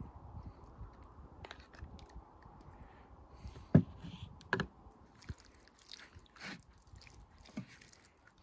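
Hands rubbing sauce into a raw whole chicken: soft wet squelching and handling clicks, with two sharp knocks a little before the middle.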